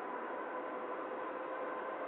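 Boeing 777-300ER's GE90 turbofan engines running: a steady rush of jet noise with a high engine whine held at an even pitch.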